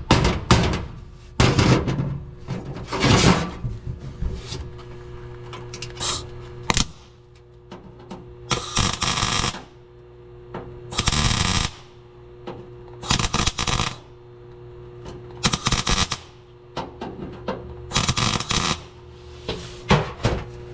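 Welder laying short tack or plug welds on a truck's sheet-steel floor pan: about ten separate noisy bursts, each up to about a second long, at uneven gaps. A steady electrical hum runs between them.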